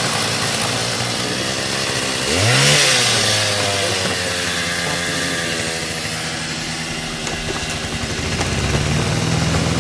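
An engine running steadily; about two and a half seconds in its revs climb sharply with a burst of noise, then drop back to a steady run.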